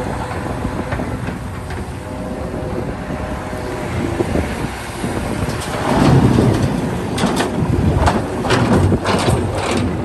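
A Hitachi 670LC hydraulic excavator working: its diesel engine rumbles steadily, then grows louder about six seconds in as the machine takes up load. Several sharp knocks and clanks follow near the end.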